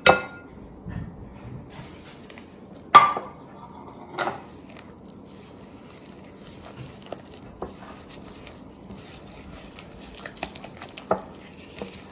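Silicone spatula stirring a thick yogurt-and-spice marinade in a glass bowl: soft scraping with scattered light taps on the glass. A few sharp clinks come in the first four seconds, the loudest about three seconds in.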